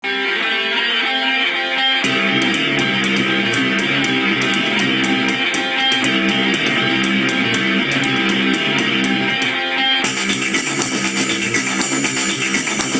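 Guitar-led music: plucked guitar notes at first, a steady beat joining about two seconds in, and a fuller, brighter sound with cymbals from about ten seconds in.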